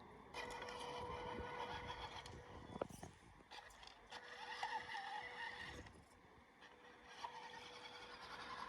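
Electric motor of an RC Toyota Land Cruiser car whining steadily as it drives, in two bursts with a short pause between, and again more faintly near the end. There is a sharp click at the end of the first burst.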